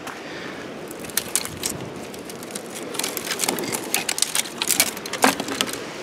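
Dry twigs snapping and crackling as they are broken and gathered by hand: scattered sharp cracks that come thick and fast in the second half.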